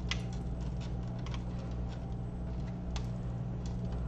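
Scattered light clicks and taps as hands handle a robot arm and its cables, over a steady low hum.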